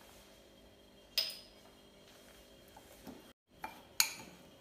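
Metal spoon clinking against a glass mixing bowl: two sharp clinks that ring briefly, about a second in and near the end, with a few lighter knocks between.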